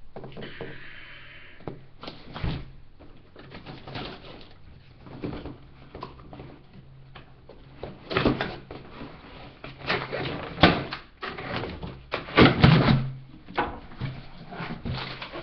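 Cardboard box of a laptop being handled and opened: irregular scrapes, rustles and knocks, coming in louder clusters about eight seconds in and again from about ten to thirteen seconds, over a faint steady hum.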